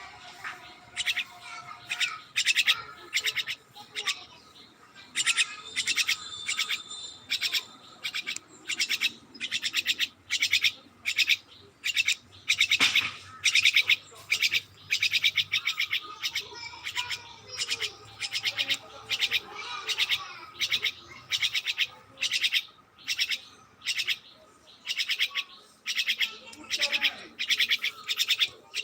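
Birds chirping: a steady run of short, high chirps, about one or two a second.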